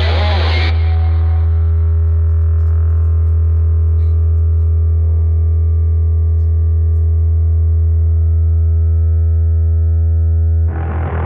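Live rock band's amplified instruments. The full band stops about half a second in, leaving a loud, steady drone: a low held note with many overtones ringing on through the amps and effects. A fuller, noisier sound comes back in near the end.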